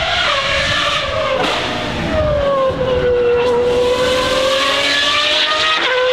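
Pagani Huayra R's V12 engine with unrestricted exhaust, screaming at high revs as the car accelerates up the hill climb. The note breaks for a gearshift about a second and a half in, then drops and slowly climbs again as it pulls away.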